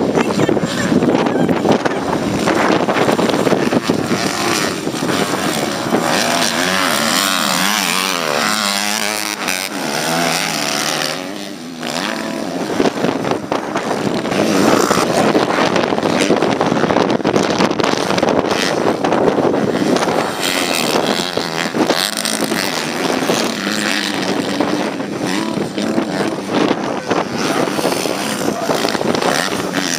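Several small-bore motocross bikes racing, their engines revving up and falling away in pitch as they accelerate and back off over the jumps.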